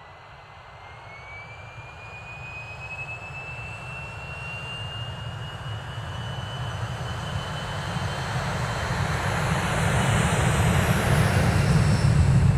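Jet aircraft engines: a thin whine rises in pitch over the first several seconds and then holds, while the engine roar grows steadily louder throughout.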